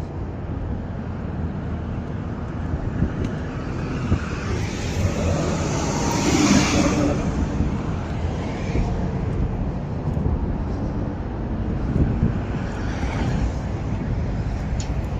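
Road traffic going by: a steady low rumble, with one vehicle passing close about halfway through, its noise swelling and fading over a couple of seconds, and a fainter one passing near the end.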